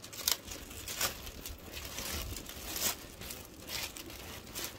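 Packaging crinkling and rustling as it is handled, in a run of short irregular bursts, the sharpest near the start and again about three seconds in.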